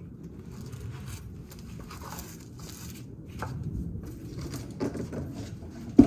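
Tools being handled: faint scraping and rustling over a low background hum, then a single sharp knock near the end.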